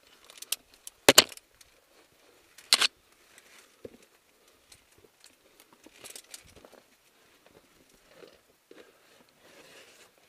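Via ferrata climbing gear clinking and knocking, with boots and gear scraping on rock as a climber moves up a chimney. The loudest are a sharp double knock about a second in and another near three seconds, followed by smaller clicks and scuffs.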